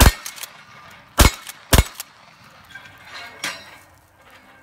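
Shotgun firing at steel targets: a shot right at the start, then two more quick shots close together about a second in, with the clink of shot on steel plates and a fainter clank about three and a half seconds in.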